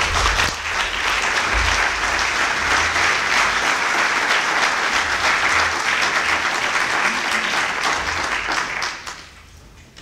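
Audience applauding steadily after a talk, the clapping dying away near the end.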